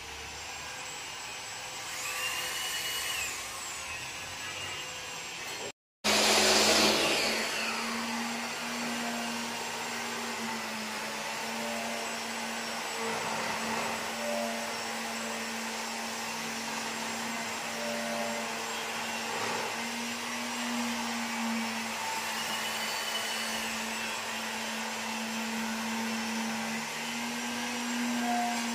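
Steady motor-like whirring hum with a low steady tone under it, broken by a brief dropout about six seconds in.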